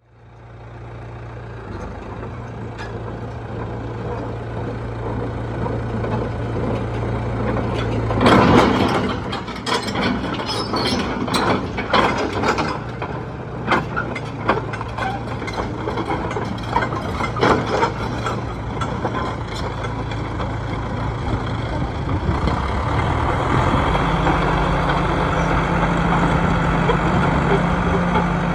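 Diesel engine of a John Deere 455E crawler loader running steadily. From about eight seconds in, a run of loud metallic clanks and knocks goes on for some ten seconds, and the engine speeds up with a higher hum near the end.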